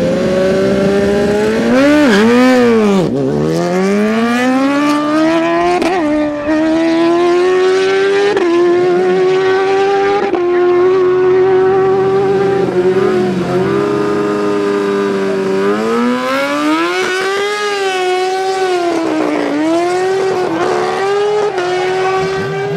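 Sport motorcycle engine launching off the drag-strip start and accelerating hard through the gears: the pitch climbs, then drops sharply at each upshift a couple of seconds apart, then holds high. Later the engine note rises and falls again.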